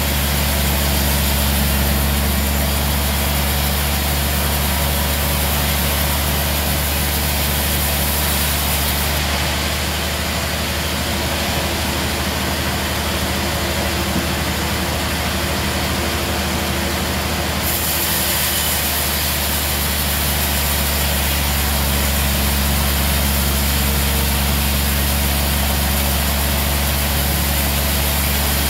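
Large sawmill band saw running steadily with a low, even motor hum as its blade saws through a log.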